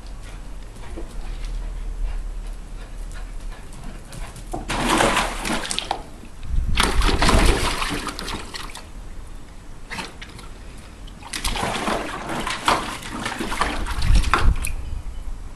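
A dog splashing in shallow water in a plastic paddling pool, in three bouts of splashing with quieter pauses between.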